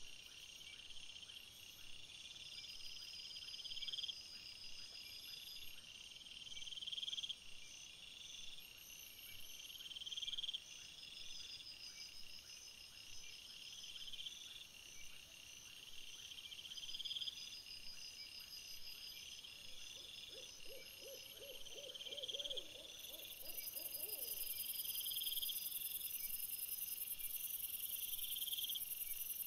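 Crickets and other night insects chirping in a repeating pattern, with one swelling phrase about every second and a half over a steady high trill. About two-thirds of the way through, an owl gives a brief wavering hoot lasting a few seconds.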